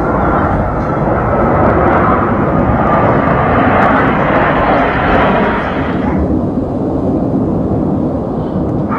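F/A-18 Hornet jet engines flying over: a loud jet roar that swells over the first few seconds, then its higher part drops away about six seconds in, leaving a lower rumble.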